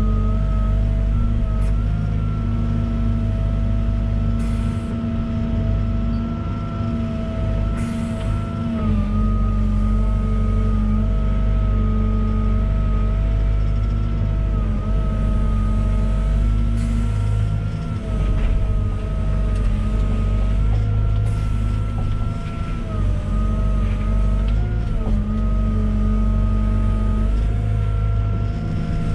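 Volvo EWR150E wheeled excavator working, its diesel engine running steadily under load with a steady high whine that drops in pitch a few times, about nine seconds in and again near the end. A few faint clicks sound over it.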